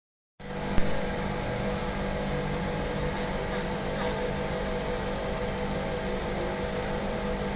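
Steady hum of running factory machinery, with one sharp knock just under a second in.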